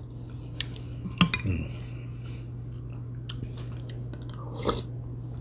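Metal cutlery clinking against a dish a few times, the loudest clink about a second in with a short ringing after it, over a steady low hum.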